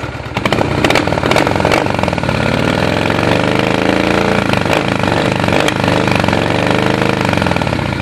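Honda Shadow 600's V-twin engine running through its stock, heat-wrapped exhaust; the revs rise slowly about three seconds in and settle back down near the end. A few sharp pops come from the exhaust, which the owner puts down to the carburettor still needing adjustment.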